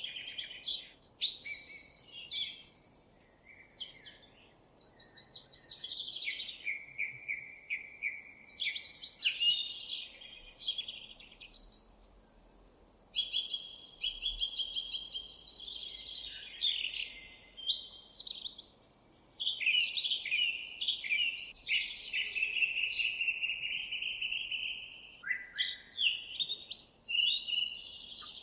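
Songbird singing a long, varied song of rapid trills and quickly repeated notes, with a few short pauses.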